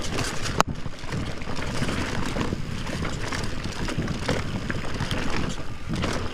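Mountain bike riding fast down a dirt trail, heard from a camera on the bike: wind buffeting the microphone over the rumble of tyres on dirt and a busy clatter of knocks and rattles from the bike, with one sharp knock about half a second in.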